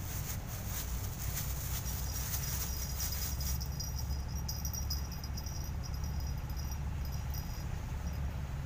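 Insects chirping in short, high-pitched trills, cricket-like, over a steady low rumble. Rustling crackles through the first few seconds.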